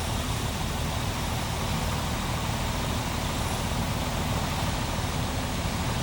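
John Deere 9400 combine running steadily: a constant diesel engine hum under an even rush of machine noise.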